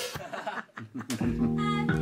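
The ring of a drum kit's last hit dies away and a short chuckle is heard. Then, about a second in, a held, low chord starts as band music comes in.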